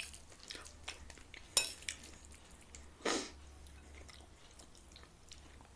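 A metal fork clinking and scraping on a plate while eating, with two sharp clinks, one at the start and one about a second and a half in, and small ticks between. There is soft chewing and a brief rushing noise about three seconds in.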